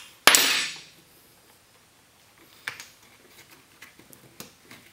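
A metal hand tool clatters down onto a workbench, one sharp ringing hit, followed by a few light clicks of parts being handled on a chainsaw.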